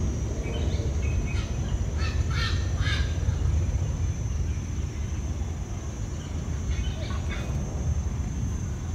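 Birds giving short, harsh call notes in two bouts, one in the first few seconds and another about seven seconds in, over a steady low rumble.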